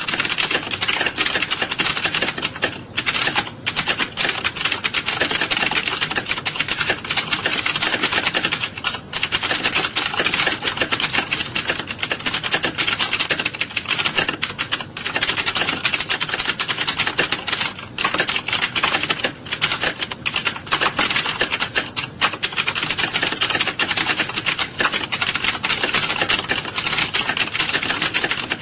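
Many computer keyboards being typed on at once in a typing class. Key clicks run together in a dense, continuous clatter, with a few brief lulls.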